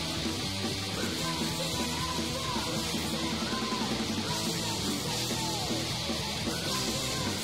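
Female-fronted hardcore punk band playing loud and dense, with a woman's screamed vocals over the band.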